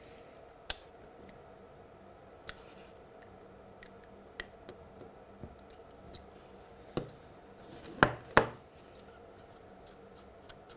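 Fine-nosed pliers working on the small plastic tabs of a model railway point: scattered light clicks and taps, then two louder, sharp clicks in quick succession about eight seconds in.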